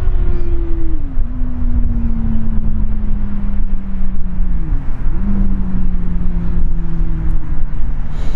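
A motor vehicle's engine drones steadily. Its pitch drops sharply about a second in, then sinks slowly, with a brief dip and recovery about halfway, over a heavy low rumble.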